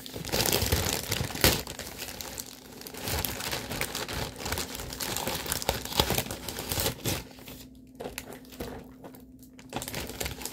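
Plastic mailer bag and plastic packaging crinkling and rustling as they are pulled open and handled by hand, in irregular bursts with two short pauses near the end.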